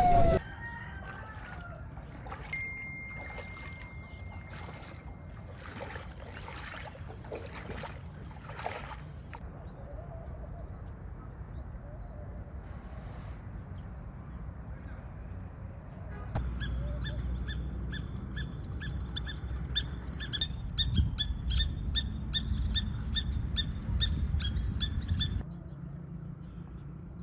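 Outdoor ambience with a low rumble, then a bird's rapid, repeated high chirping calls for several seconds before they stop abruptly.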